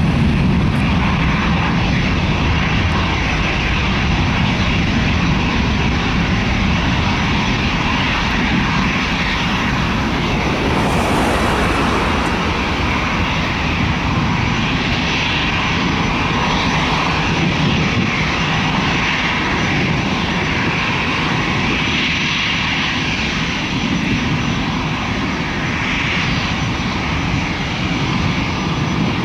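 Boeing 757-200 jet engines at takeoff thrust, heard from behind as the airliner rolls down the runway and climbs away: a steady rumble with a broad hiss over it.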